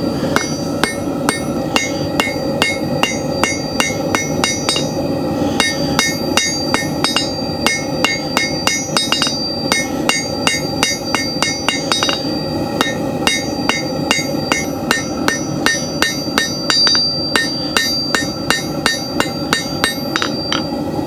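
Hand hammer striking hot steel bar stock on an anvil, the blows coming in runs of about two to three a second with short pauses, each blow ringing off the anvil: the bar's end being drawn into a square taper for a hand-forged nail. A steady rushing from the lit propane forge runs underneath.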